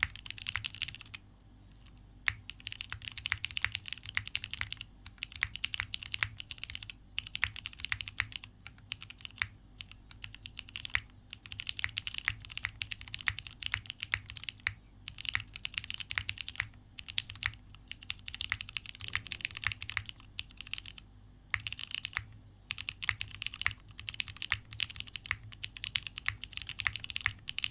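Spectacle60 mechanical keyboard with a polycarbonate plate, Cherry MX2A switches and GMK keycaps, typed on in quick runs of keystrokes with brief pauses between bursts.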